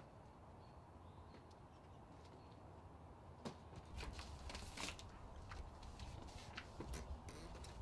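Faint knocks and scuffs of cardboard shipping boxes being handled and carried, with a cluster of light knocks from about three and a half to five seconds in.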